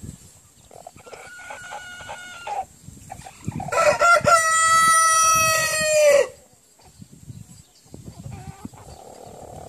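Rooster crowing: a quieter crow about a second in, then one loud, long crow from a Brahma rooster lasting about two and a half seconds, its pitch dropping at the end.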